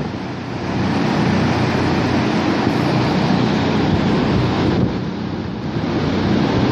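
Recycled flush water rushing across a dairy barn floor in a steady loud rush, with a low hum beneath it.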